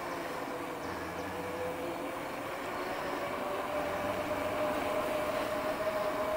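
Electric e-bike drive motor whining with a single steady tone that slowly rises in pitch, over a steady rushing noise.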